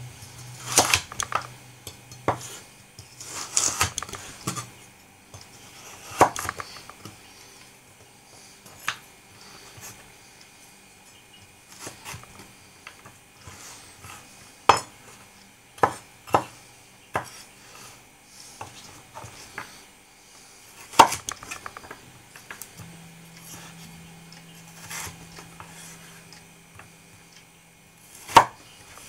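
Kitchen clatter: a knife and dishes knocking and clinking at irregular intervals, a few seconds apart, over a faint low hum.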